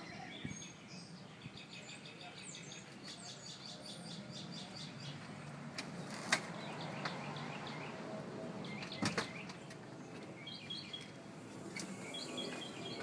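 Small birds chirping in quick repeated series over a steady background hush. A sharp click about six seconds in and a double knock about nine seconds in come from a glass storm door being opened and swinging shut.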